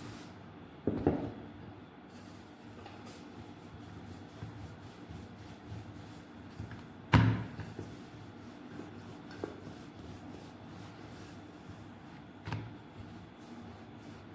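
Dough being rolled out with a rolling pin on a board: faint rubbing with a few knocks of the pin against the board, the loudest about seven seconds in.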